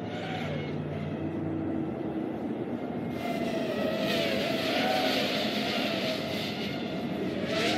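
Two FPV racing quadcopters in flight, their motors and propellers whining with a pitch that rises and falls with throttle. The whine grows louder about three seconds in.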